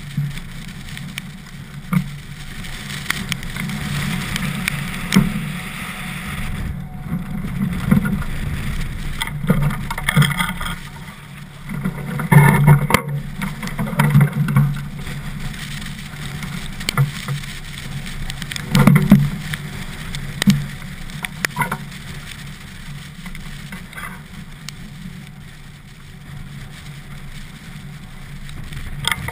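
Wind buffeting the microphone over the rumble of a DN iceboat's runners on the ice, with several sharp knocks and thumps, the loudest about twelve and nineteen seconds in.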